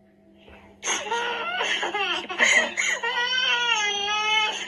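A young child crying uncontrollably, starting about a second in and rising to a long, high, drawn-out wail, with a steady low hum beneath it. The parent puts the crying down to a severe stomach cramp that nothing could console.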